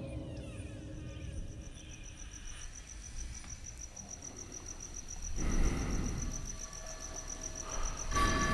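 High, rapidly pulsing insect-like chirping over a low background rumble. A louder low rumble swells up about five seconds in and again near the end.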